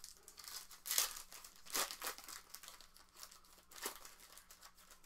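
Plastic sports-card pack wrappers crinkling as they are handled, in several short rustles, the loudest about a second in.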